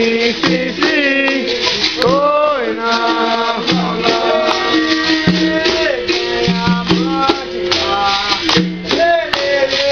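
Capoeira roda music: berimbau played with a rattling caxixi shaker, with voices singing over it.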